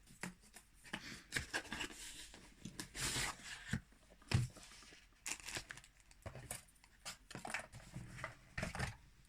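Packaging of a subscription box being opened by hand: irregular rustling, tearing and crinkling, with scattered short clicks and taps.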